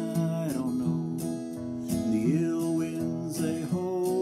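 Steel-string acoustic guitar strummed and flatpicked in a folk/bluegrass rhythm, chords ringing between the pick strokes.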